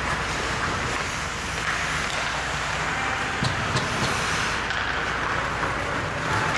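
Ice hockey play in a rink: a steady hiss of skates scraping the ice, with a few faint sharp clicks of sticks on the puck a little past the middle.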